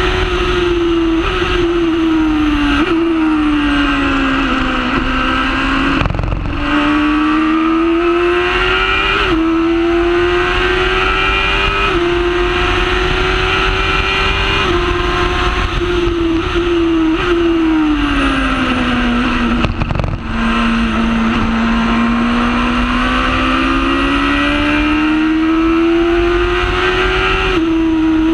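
Honda Hornet motorcycle engine in a Formula Predator's single-seater, heard onboard at high revs. Its pitch slides down and climbs back up several times, with abrupt steps at the gear changes.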